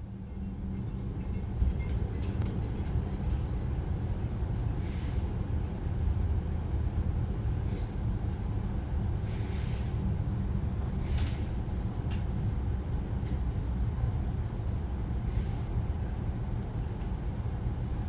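Regional passenger train in motion: a steady low rumble of the running train, with short hissing noises now and then.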